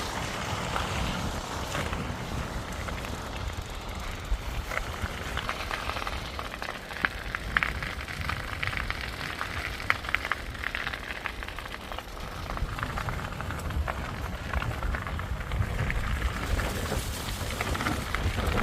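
Wind rumbling on the microphone while riding a loaded touring bicycle, with an irregular crackle running through it.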